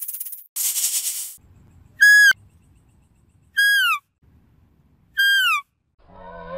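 A snake hissing once, briefly, then a deer giving three short, high-pitched calls about a second and a half apart, each sliding down in pitch at the end.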